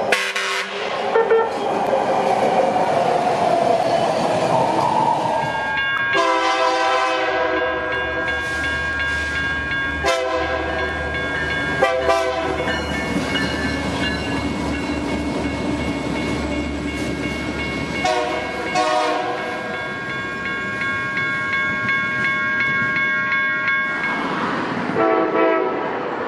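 A BART train approaching with a rising whine. Then Union Pacific freight diesel locomotives pass close by, rumbling and sounding their air horn in several short blasts and then one long held chord. Near the end another train's horn gives a short blast.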